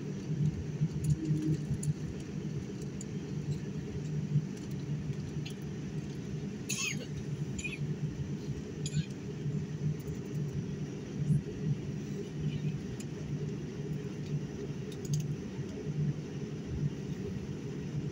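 Jet airliner cabin noise during taxi: a steady low rumble heard from inside the cabin at a window seat. A few brief higher sounds come through about seven to nine seconds in, one sliding down in pitch.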